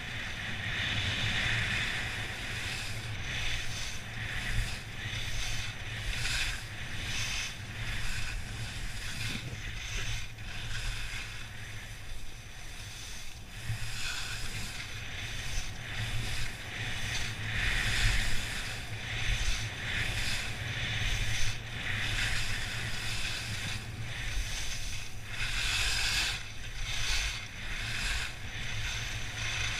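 Alpine skis carving down a piste, the edges hissing and scraping over the snow in surges that come and go with the turns, over a steady rumble of wind on the microphone.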